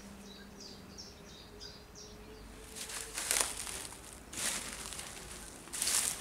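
A small bird sings a quick run of high chirps in the first two seconds. From about three seconds in, a few footsteps crunch through dry fallen leaves.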